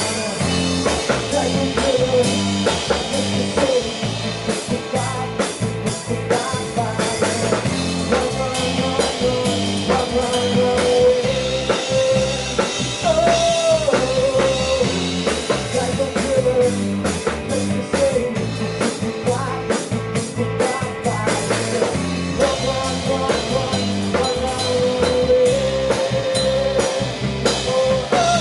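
Live rock band playing with drum kit and electric guitars, cymbals and drum hits steady throughout under a held melody line that bends in pitch.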